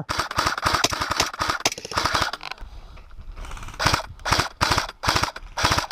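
Airsoft rifle firing: a rapid full-auto burst for about two and a half seconds, then about five short bursts in the second half.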